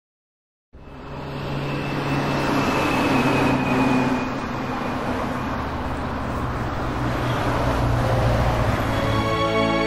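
City road traffic: a steady wash of car noise that fades in after about a second of silence. Music comes in just before the end.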